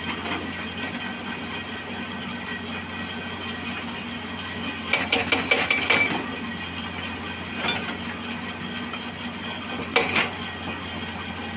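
Excavator's diesel engine running steadily, with short bursts of metallic clanking and rattling from the machine's bucket and linkage about halfway through, again a little later, and near the end.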